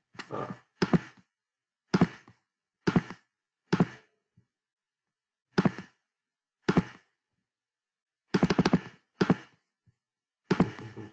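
A series of about ten short, muffled thuds, irregularly spaced, with silence between them.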